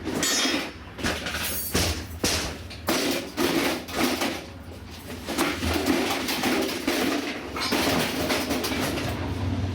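Small gasoline engine running roughly, its sound surging and fading unevenly, as it burns off a load of oil from the combustion chamber.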